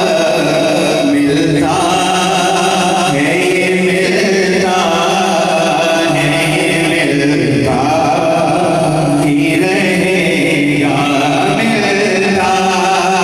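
A man chanting a naat (Urdu devotional poem in praise of the Prophet) into a microphone, unaccompanied, in phrases of a couple of seconds with long held notes.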